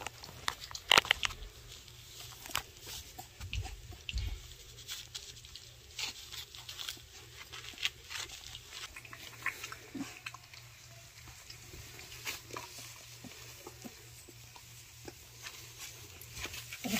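Basset Hound puppies, about three weeks old, eating soft puppy mush from a stainless steel feeding pan: lapping and chewing with irregular short clicks, a few louder ones about a second in.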